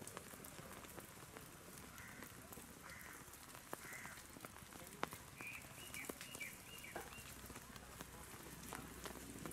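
Light rain pattering steadily, with scattered drop ticks. A few faint, short high chirps come partway through.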